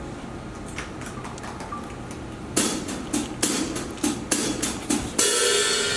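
Drummer's count-in on a live band's drum kit: about seven sharp clicks at an even pace, about two and a half a second, starting halfway through. A cymbal wash near the end sets the band into the next song.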